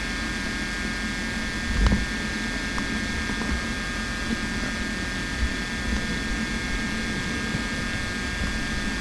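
Steady mechanical hum with several fixed high tones, and a single thump about two seconds in.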